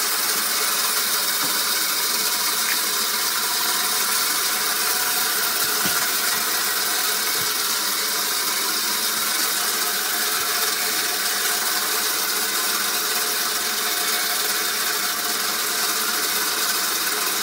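Mazerustar planetary mixer spinning a metal cup at 1200 rpm, with zirconia grinding beads inside pulverising tablets into fine powder. It makes a steady, loud, high-pitched rushing grind.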